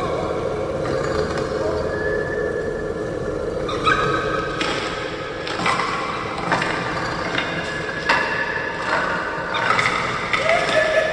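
Layered horror sound effect of a torture chamber: a steady low rumble under held, eerie pitched tones, with sharp knocks and clanks from about four seconds in.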